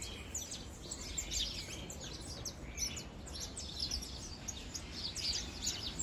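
Small wild birds chirping: a busy, overlapping stream of short, high, falling chirps from several birds.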